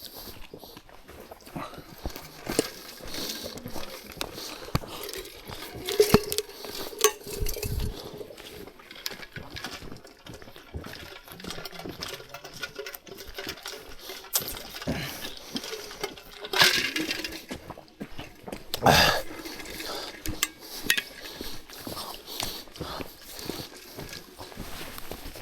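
Irregular small clinks and knocks, with a few louder bursts of rustling noise about 6, 17 and 19 seconds in.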